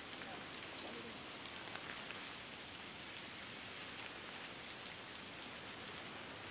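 Steady, even hiss of rain falling on forest foliage.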